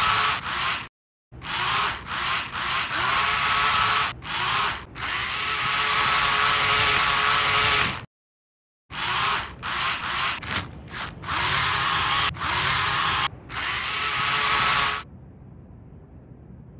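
Four small geared DC (BO) motors of an Arduino robot car whirring in short runs, starting and stopping again and again as it is driven about, with the pitch rising as they spin up. Near the end the motor sound stops, leaving a faint steady high tone with hiss.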